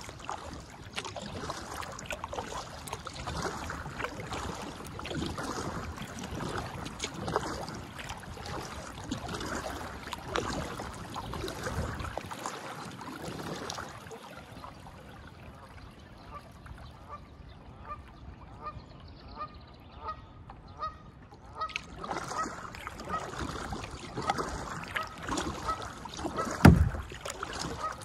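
Kayak paddle strokes splashing and dripping. From about halfway, a bird calls over and over, about two short calls a second, and a single loud thump comes near the end.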